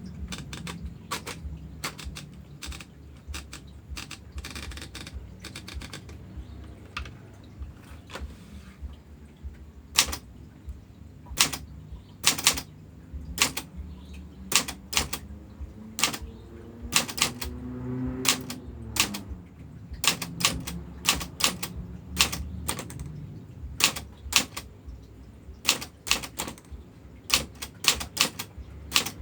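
Old manual Brother typewriter being typed on: sharp, irregular keystrikes, some much louder than others, with a longer sliding sound a little past halfway.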